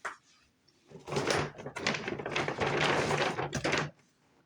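A short knock, then about three seconds of loud rustling and handling noise, as toys and packaging are moved about close to the microphone.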